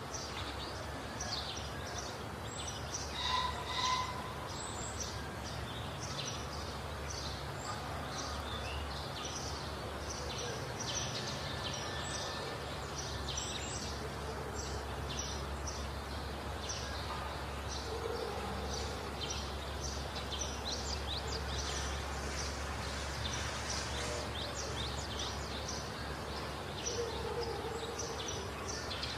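Steady background noise with many short, high chirps throughout, and a brief tone about three to four seconds in.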